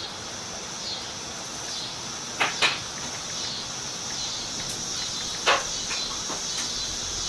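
Crickets chirring steadily, broken by a few sharp clicks: two close together about two and a half seconds in and one more about five and a half seconds in.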